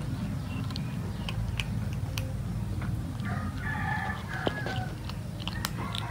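A rooster crows in the background about halfway through, one long wavering call, and starts to crow again near the end. Sharp clicks of a kitten crunching dry kibble come through between, over a steady low rumble.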